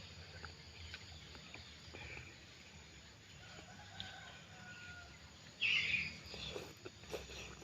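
A chicken in the background: a faint, drawn-out crow in the middle, then a louder short call near the end, over small chewing clicks.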